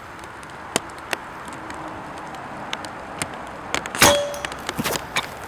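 A Hatsan Flash .22 PCP air rifle, its integral moderator keeping the report subdued, fires once about four seconds in: one sharp shot with a brief ring after it. A few faint clicks come before it.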